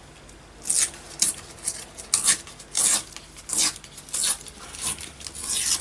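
A sheet of music paper being torn by hand in a series of short rasping rips, roughly two a second.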